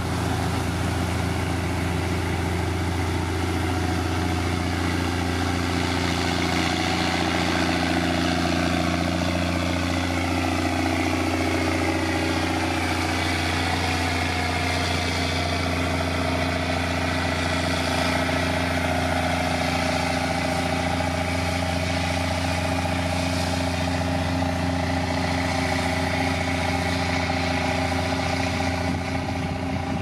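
Heavy road-building machine's diesel engine running steadily at a constant level, its pitch shifting a little up and down partway through.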